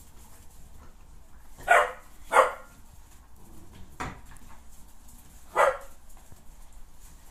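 Hungarian Vizsla puppies barking as they play: three short sharp barks, two in quick succession about two seconds in and one more near the end, with a single sharp knock in between.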